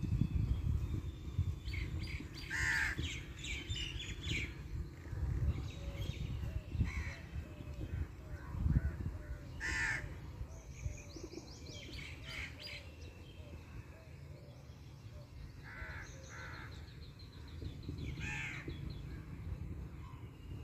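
Birds calling outdoors: loud, harsh calls come singly or in short runs several times, over fainter higher chirps and trills, with a low rumble underneath.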